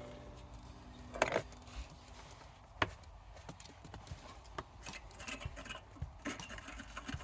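Scraper and brush scraping and tapping on corroded battery hardware while it is cleaned: scattered sharp clicks, then a run of short scrubbing strokes in the second half.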